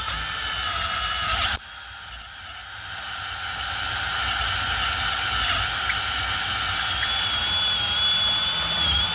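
Electric drill running a 3/8-inch bit through an aluminium bracket clamped in a vise, the bit worked sideways to elongate the hole. The motor whine drops off about a second and a half in, then builds back up and runs steadily.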